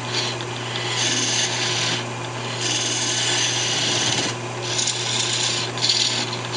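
Parting tool cutting into a walnut blank spinning on a wood lathe: a scraping hiss that comes and goes in several strokes over the steady hum of the running lathe.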